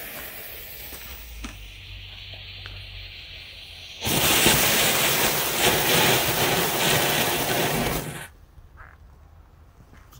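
Weco Red Star Silver Pine youth firework fountain: the lit fuse fizzes quietly, then about four seconds in the fountain starts with a loud steady hiss of spraying sparks, which cuts off suddenly about four seconds later.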